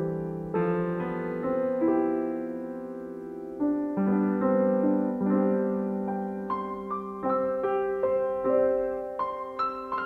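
Background piano music: a slow, gentle piece of held chords and single notes, with notes coming more often in the second half.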